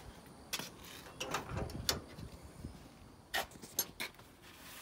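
Several sharp clicks and clunks from the door latch and door of a 1971 Chevrolet C10 pickup as it is opened and the cab is climbed into.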